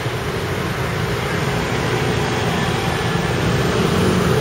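Steady rumble of motor-vehicle engines and city street traffic, with a low engine hum and no distinct single event.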